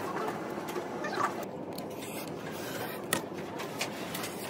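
Utility knife cutting through a printed poster on a cutting mat, then the poster sheet being lifted and handled, over a steady background hum; a sharp click about three seconds in.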